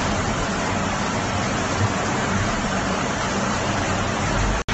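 Steady rumble inside the cargo box of a moving truck: road and engine noise with heavy rain drumming on the box, and a faint low hum underneath. It drops out abruptly for an instant near the end.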